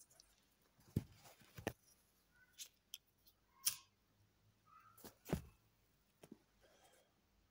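Faint, irregular clicks and knocks, about eight of them spaced unevenly, a few followed by a brief chirp-like tone.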